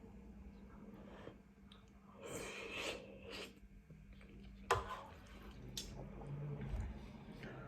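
Close-miked wet chewing of spicy noodles and rice cakes, in irregular bursts, with a sharp click a little past halfway.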